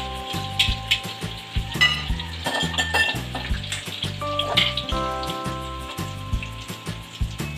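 Tofu cubes deep-frying in hot oil in a wok: a steady sizzle with small crackles and pops. Background music with held notes and a steady beat plays underneath.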